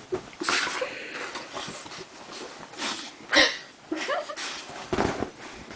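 A puppy sniffing and licking at a person's face on a bed. It comes as several short noisy bursts, the loudest about three and a half seconds in, with bedding rustling and a couple of brief vocal sounds.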